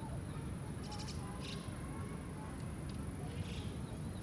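Outdoor ambience: a steady high-pitched insect drone with short chirps about once a second, over a steady low rumble.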